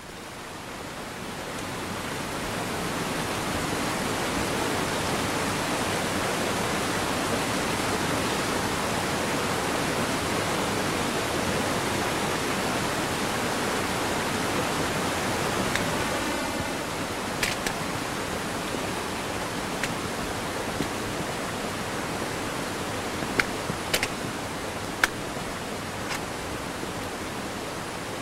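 Rushing water of a mountain stream cascading over rocks: a steady hiss that swells up over the first few seconds. A few sharp clicks stand out in the second half.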